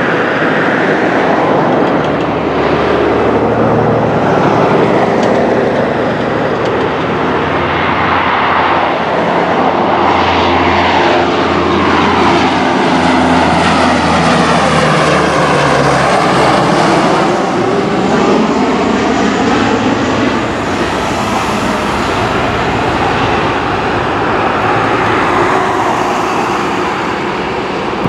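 Blue Angels' C-130T Hercules 'Fat Albert' taking off low and passing close overhead, its four Allison T56 turboprops and propellers running loudly. The propeller tones fall in pitch as it goes by, about halfway through, and the sound then carries on as it climbs away.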